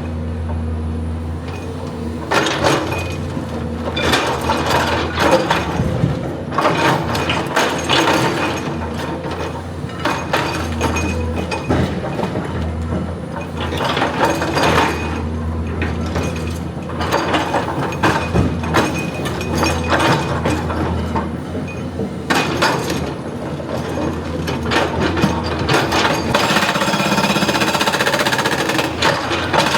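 Excavator working rock: the diesel engine runs steadily under irregular loud knocks and clattering of rock and steel, turning into rapid continuous hammering near the end.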